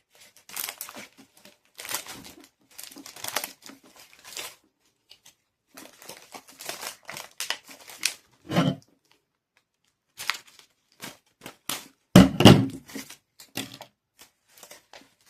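Plastic crinkling and rustling in irregular bursts as a bunch of artificial flowers is handled, with two louder thumps, about eight and a half and twelve seconds in.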